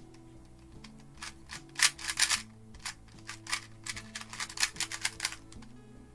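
Rapid, irregular clicking and clacking of a GAN 251M Leap magnetic 2x2 speed cube being turned by hand, in quick bursts of turns, over quiet background music.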